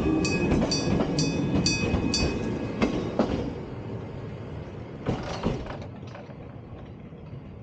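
Electric bell of a Kumamoto Electric Railway level crossing striking a clanging 'kan-kan' about twice a second; the ringing stops about two seconds in. Under it a passing train rumbles and fades away, with a few clacks of wheels over rail joints.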